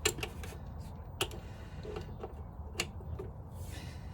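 Metal hand tools clicking and clinking against motorcycle fork bolts as they are worked loose. There are three sharp clicks about a second and a half apart and a few softer ticks between them.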